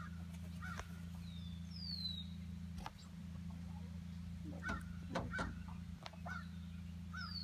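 Backyard poultry calling in short, repeated calls about twice a second, with two high falling whistles and a few soft knocks around the middle.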